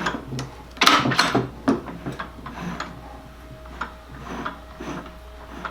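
Metallic clicks and clunks from a Quaife sequential gearbox being shifted and turned by hand, its gears and shift mechanism knocking irregularly. A loud burst of clunks comes about a second in, followed by lighter, scattered clicks.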